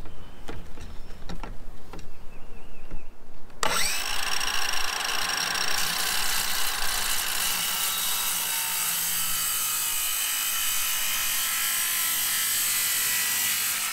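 A few light knocks, then about four seconds in a circular saw starts with a short rising whine as its motor comes up to speed. It runs steadily through a long cut in a composite deck board.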